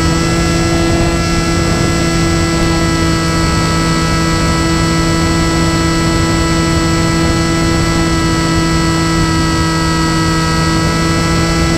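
RC flying wing's electric motor and propeller heard from the onboard camera: a loud, steady whine at near-constant throttle, dipping slightly in pitch near the end, with wind rushing over the airframe.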